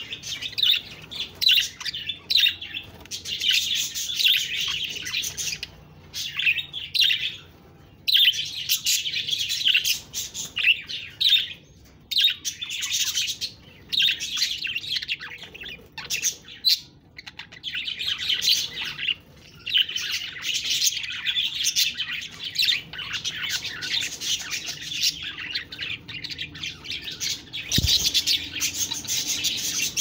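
Budgerigars chattering and warbling in fast, dense runs of high chirps, broken by brief pauses.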